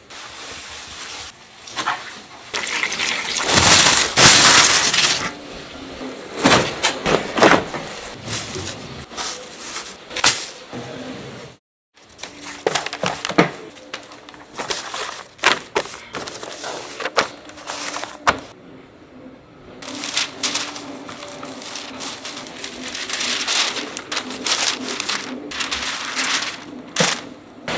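Sheets of newspaper and paper rustling and crackling as they are handled and spread over wooden trays, with scattered sharp clicks and knocks. There is a brief gap a little under halfway through.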